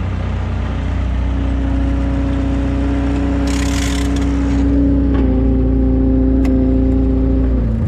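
John Deere 675B skid steer running steadily, with a whine that steps down in pitch about five seconds in and stops near the end. A short hiss comes about three and a half seconds in.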